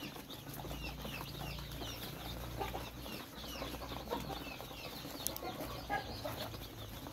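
A large flock of day-old KUB-2 Janaka chicks peeping continuously, a busy chorus of short high cheeps, many falling in pitch, over a low steady hum.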